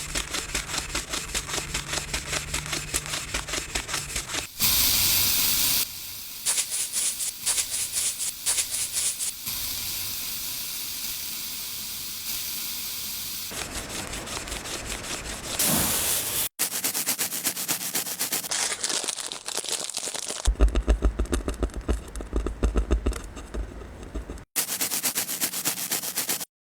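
A dirty coin being cleaned, in a string of short cuts: rapid repeated scrubbing or scraping strokes, with a steady hiss in places.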